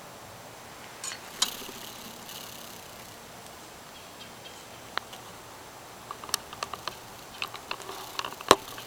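Scattered small clicks and ticks of a handheld camera being handled and moved, growing into a quick cluster near the end with one sharp, loud click about eight and a half seconds in.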